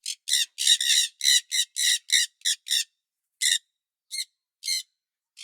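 A parrot squawking: a rapid run of short, harsh calls, about ten in the first three seconds, then a few more spaced further apart.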